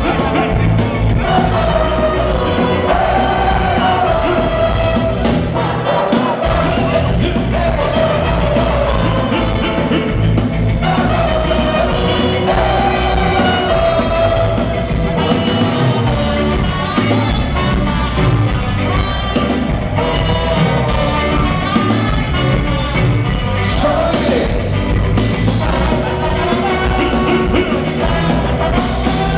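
Live ska band playing loudly, with a man singing lead over bass, drums and guitars.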